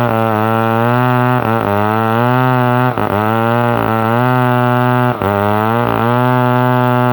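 Didgeridoo drone: one steady low note whose overtones are swept up and down by the player's mouth, with several brief dips where the note breaks.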